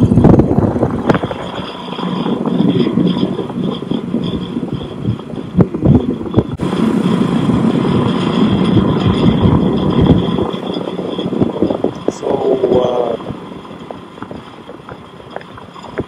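Outdoor condensing unit of a central air conditioner starting up and running, its condenser fan pulling air through the coil with a loud, steady rush that eases about ten seconds in.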